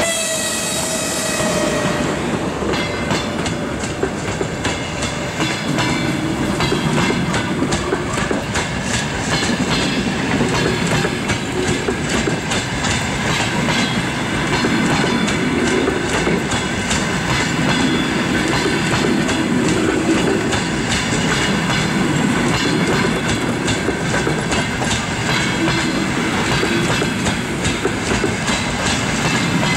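Passenger coaches of a departing train rolling past at low speed, their wheels clicking over rail joints. A high whining tone from the EP1M electric locomotive fades away in the first couple of seconds.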